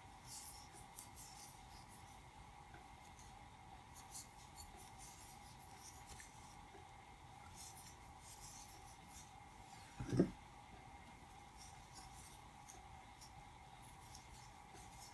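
Faint scratchy rustling of a crochet hook pulling worsted-weight yarn through stitches, in short irregular strokes. A single low thump about ten seconds in, over a steady faint hum.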